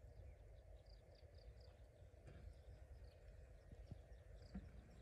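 Near silence: faint outdoor ambience with a low rumble, short high chirps repeating in quick runs, and a few soft clicks and taps in the second half.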